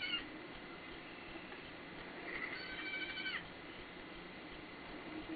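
Baby goat bleating in a high, squeaky, dolphin-like call. The end of one call comes right at the start, then one call of a little over a second about two seconds in, dropping in pitch as it ends.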